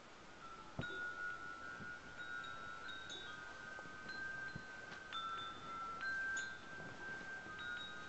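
Chimes ringing: several overlapping, held tones, with new strikes every second or so and a few soft knocks among them.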